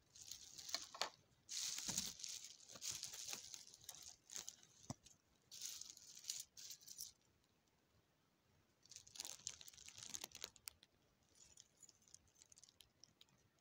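Thin plastic bag crinkling and rustling in irregular bursts as items are handled over it, with a few small clicks.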